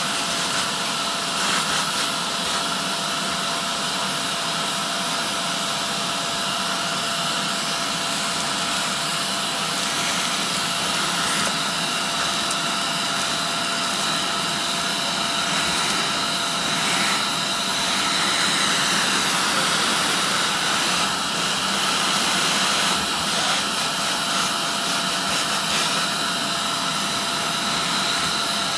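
Shark Navigator upright vacuum running steadily, its hose wand sucking debris out of an opened cloth vacuum bag. The suction whine shifts in pitch around the middle, with a few short clicks along the way.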